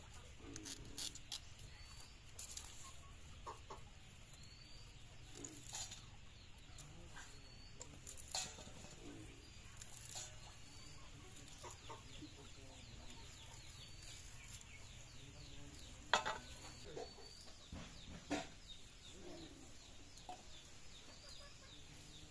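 Chickens clucking in the background, with a short high chirp repeated every second or two. Over it, scattered sharp clicks of stalks and small fish being cut on upright boti blades.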